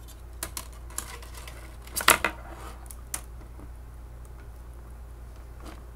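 A few sharp clicks and knocks of the small plastic parts of a Hercules RC helicopter being handled and set down on a countertop during disassembly, the loudest cluster about two seconds in, over a low steady hum.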